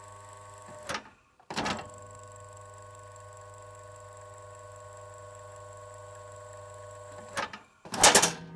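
National FY-25SF1 ventilation fan motor running with a steady hum. Just under a second in it is switched off with a click and goes quiet, then clicks back on about half a second later and runs again. Near the end come two more clicks, the second a loud clatter.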